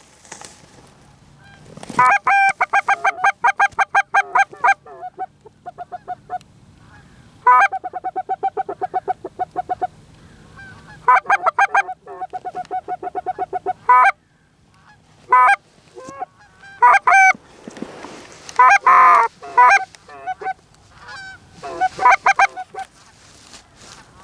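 Canada goose calling: loud runs of rapid honks and clucks, about eight a second, in bursts of a few seconds with short pauses between, as geese are worked in toward the decoys.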